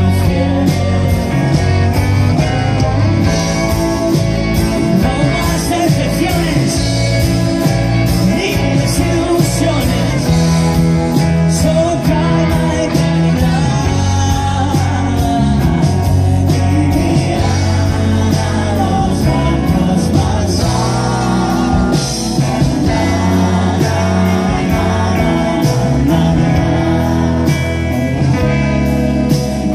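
Live rock band playing a song, with electric guitars, bass and drums under a sung lead vocal, heard from the audience in a concert hall.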